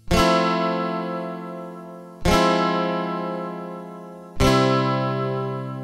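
Acoustic guitar music: three strummed chords about two seconds apart, each ringing out and fading before the next.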